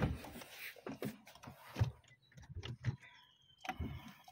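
Scattered light clicks and knocks from the controls of a Hindustan Ambassador's cabin being handled, the gear lever worked and the steering wheel turned, with the engine not running.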